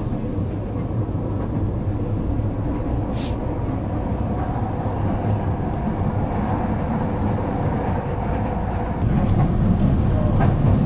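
Interior running noise of a Manila LRT train car on the move: a steady rumble with a faint hum over it. A short hiss sounds about three seconds in, and the low rumble grows louder from about nine seconds in.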